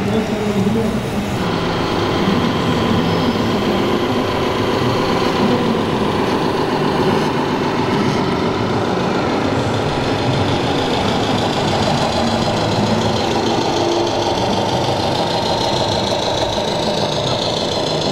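Simulated diesel truck engines from the sound modules of 1:14-scale RC model trucks, idling and running steadily, several overlapping.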